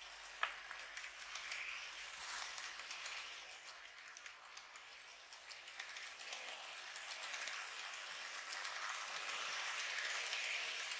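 N gauge 113 series model train running along the track: a steady whirring rattle of its motor and wheels, dotted with light clicks over the rail joints. One sharp click comes about half a second in, and the noise swells louder near the end.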